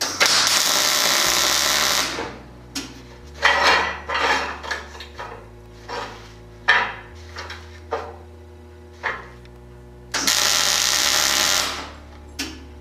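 Two tack welds on steel plates: about two seconds of steady arc-welding hiss and crackle at the start, and another of about a second and a half near the end. Scattered clinks and knocks of metal being handled fall between them.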